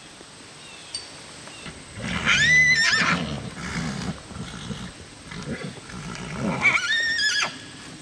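Fjord horses whinnying: two high-pitched calls about four seconds apart, each lasting about a second.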